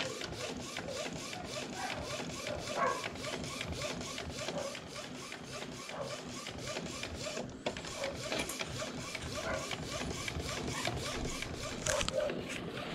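Epson L805 inkjet printer printing, its print-head carriage moving back and forth with a rapid, even ticking.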